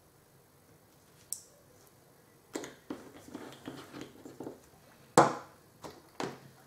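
Plastic model-kit parts and tools being handled on a work surface: one sharp click, then from about halfway a run of irregular small clicks and taps, with a louder knock near the end.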